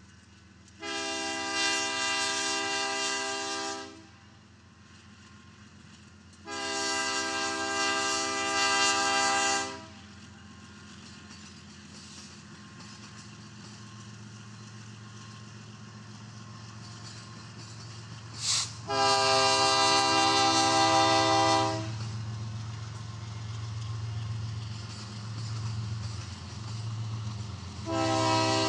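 BNSF diesel freight locomotive's multi-chime air horn sounding the grade-crossing signal: two long blasts, a short one and a long one, with another long blast starting near the end. Under the horn runs a low rumble of the locomotive and rolling cars that grows louder from about halfway through, as the train reaches the crossing.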